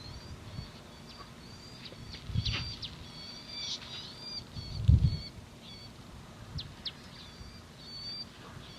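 Birds chirping, many short high calls repeating throughout. Two low thumps, about two and a half seconds apart, the second the loudest sound.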